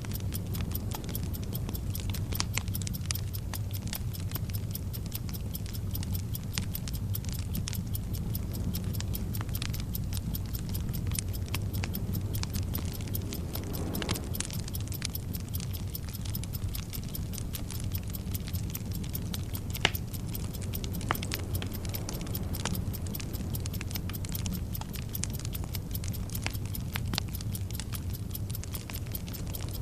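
Sound-effect bed of a burning fuse: a steady sputtering crackle over a low rumble, with clock ticking mixed in. It runs on at an even level, with a couple of sharper snaps a little past the middle.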